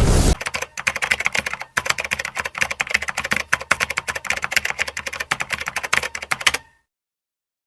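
Rapid, uneven clicking like computer-keyboard typing, a typing sound effect, for about six seconds after a loud rushing noise cuts off at the start. It stops abruptly.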